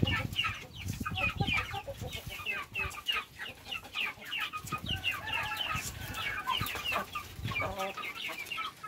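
A flock of young chickens clucking and chirping as they feed, with many short, high, falling calls a second overlapping throughout. Low knocks sound now and then underneath.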